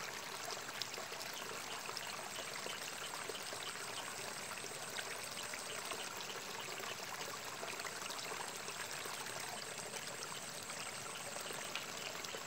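Water flowing and trickling steadily in a small rice-field irrigation ditch, with a faint steady high whine above it.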